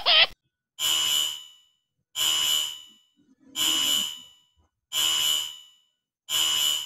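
An electronic alarm-like beep repeated five times at an even pace, about one every 1.4 seconds, each a shrill tone held for about half a second and then fading.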